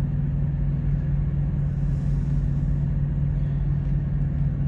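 Truck's engine idling, a steady low drone heard from inside the cab.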